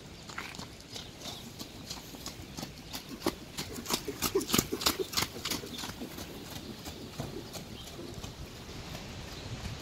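Hoofbeats of a cantering Lusitano horse on the sand footing of a riding arena, loudest a few seconds in as the horse passes close by.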